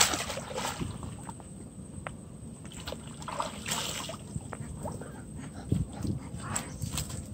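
Splashing and sloshing as a landing net holding rohu fish is lifted out of the river, with a sharp splash at the start and water running off the net.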